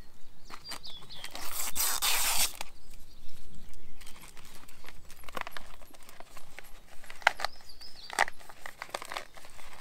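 Freeze-dried meal pouch being torn open by hand, a loud rasping tear about a second and a half in, followed by crinkling and small crackles as the pouch is handled and opened out.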